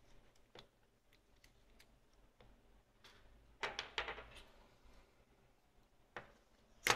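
Small clicks and handling noise from a compact digital camera's body and back cover being pressed and fitted by hand, with a short scraping rustle a little past halfway and a sharp click just before the end.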